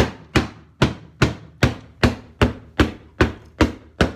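A hammer striking over and over at a steady pace, about two and a half blows a second, knocking out the drilled-through plywood lining inside an antique York safe.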